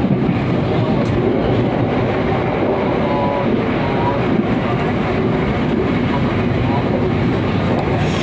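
Passenger train running along the track: a steady rumble of wheels and running gear, with faint brief squeals a few seconds in.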